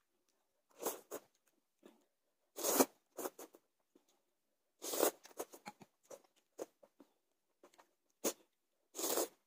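Noodles being slurped in short noisy bursts every second or two, with smaller mouth and utensil clicks between.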